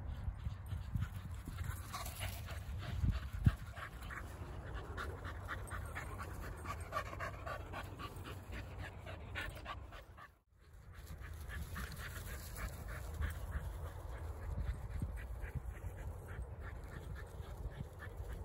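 Dogs running about in a grassy field, with quick rhythmic panting and footfalls, over a low rumble of wind on the microphone. The sound drops out briefly about ten seconds in.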